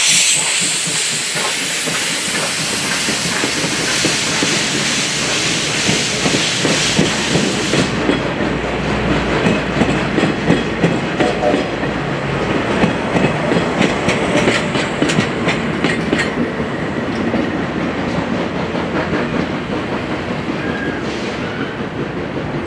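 JNR Class 8620 steam locomotive 58654 and its train passing close by. A loud hiss of steam fills the first several seconds, then the train carries on with a steady, rhythmic clatter of wheels over the rail joints.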